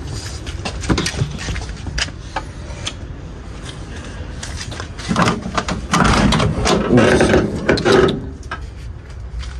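The body fittings of an old Nissan Patrol being handled: scattered clicks and knocks, then a louder stretch of rattling from about five seconds in that lasts some three seconds.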